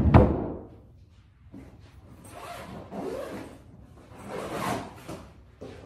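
A dresser drawer pushed shut with a thump, then a few long raspy swishes as a suitcase is unzipped and clothes are handled.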